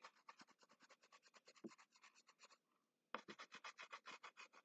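Wax crayon rubbed quickly back and forth on paper, filling in a coloured area: faint rapid scratchy strokes, about eight a second, with a short pause just past halfway.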